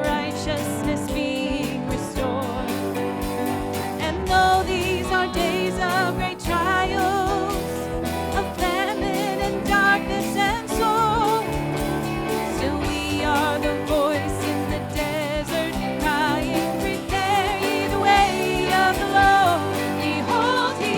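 Worship music: singing with vibrato over instrumental accompaniment.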